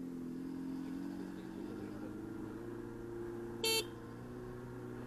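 Revolt RV400 electric motorcycle playing its artificial engine sound from its speaker, a steady hum whose pitch rises a little over the first couple of seconds as the bike picks up speed, then holds. A single short, loud beep cuts in past the middle.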